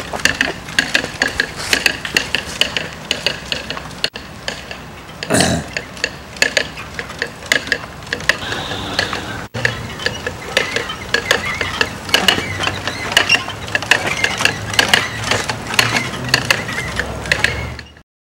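Mechanical hoof clopper on a pedalled horse bike, clacking fast and unevenly like hoofbeats as the bike rolls; it cuts off suddenly near the end.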